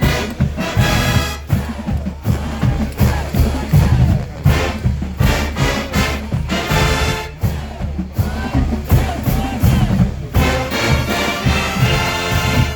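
Marching band playing, brass horns over a steady beat of marching drums.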